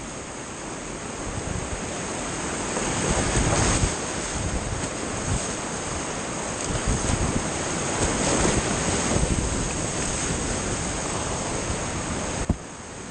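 Rushing whitewater of a creek rapid, heard from a camera at water level on the kayak, a steady wash of water noise that swells and surges. A sharp click near the end, after which the water sounds quieter.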